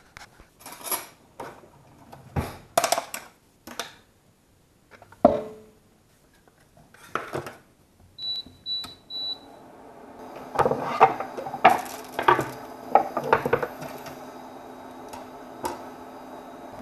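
Handling knocks and a ringing metal clank about five seconds in. Then the induction hob's touch controls beep three times as it is switched on, and from about ten seconds the hob runs with a steady hum, while a knife and cutting board clatter on the counter.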